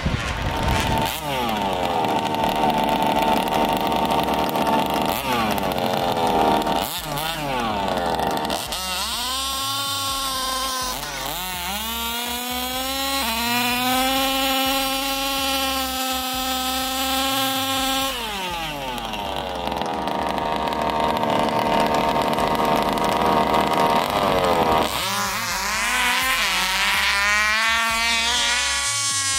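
Small two-stroke engines of 1/5-scale gas RC cars revving up and down in short blips, then held at a steady high pitch for several seconds. Near the end the pitch climbs steeply as the cars launch and accelerate away.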